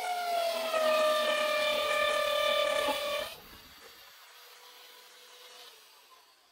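Electric impact drill motor running with a high whine that slides down in pitch, then stops a little over three seconds in.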